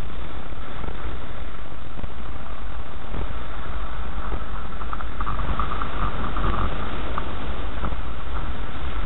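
Car driving slowly over a rutted, muddy dirt track, heard from inside the car: a steady low engine and tyre rumble, with a few short squeaks about five to seven seconds in.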